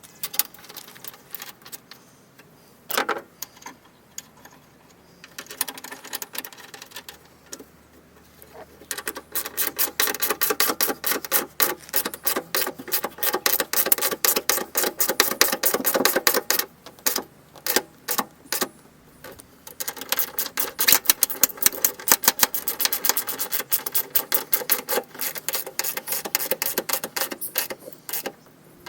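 Rapid runs of sharp metallic taps and clicks, many a second, broken by short pauses, from work on the door's sheet metal, with a faint low hum under the middle stretch.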